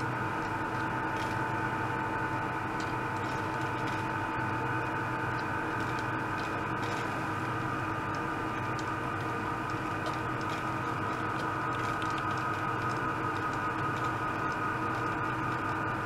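Small liquid-circulating pump running steadily, a constant whine of several held tones over a hiss as it drives liquid and air through the tubing to make fine bubbles, with faint scattered ticks.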